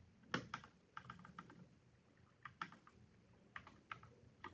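Computer keyboard typing: short runs of a few quick key clicks separated by pauses of about a second.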